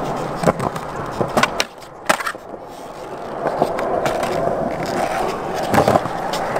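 Skateboard's hard wheels rolling over smooth skatepark concrete, with several sharp clacks of the board hitting the ground. The loudest clacks come about two seconds in, just after a brief drop in the rolling noise, and near the end.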